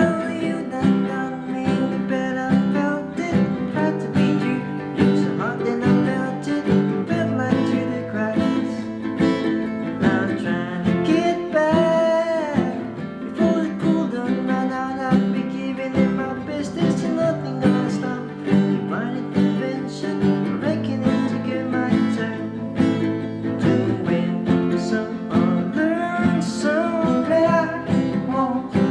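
Acoustic guitar strummed steadily in a song, with a singing voice at times.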